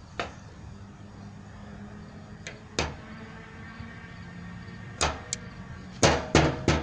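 Sharp clicks and knocks of a hose clamp being handled and fitted onto a rubber fuel line, a few scattered and then three in quick succession near the end, over a steady low hum.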